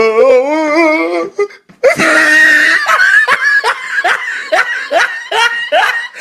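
A person laughing loudly: a long wavering laugh, a brief pause, then a run of laughter in short bursts about two to three a second.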